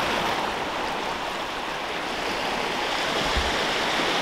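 Small waves washing onto a sandy beach, a steady rush of surf.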